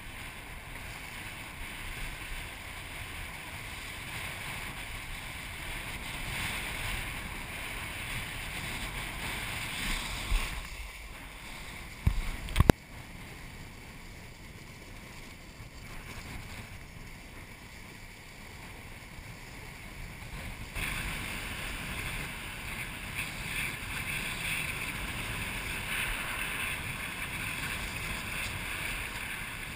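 Steady rush of water and wind noise as a kiteboard planes across a lagoon, with a few loud knocks about ten to thirteen seconds in. The hiss grows brighter about two-thirds of the way through.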